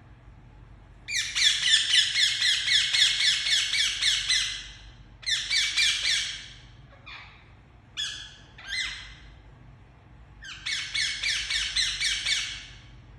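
Indian ringneck parakeet screeching loudly in rapid runs of harsh, repeated notes, about six a second. It calls in three bouts with a few single calls in between.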